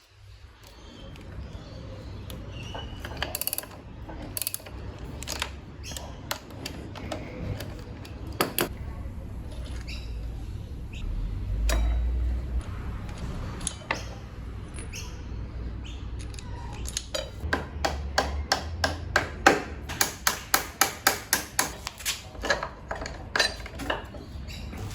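Hand tools working on a motorcycle's front fork: scattered metallic clicks and knocks, then a fast, even run of sharp clicks, about four to five a second, in the last several seconds.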